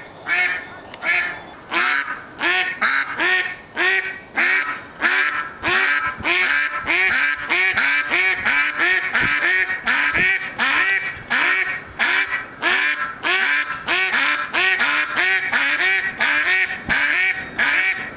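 Mallard duck quacking over and over, loud, in a rapid unbroken series of about two to three quacks a second.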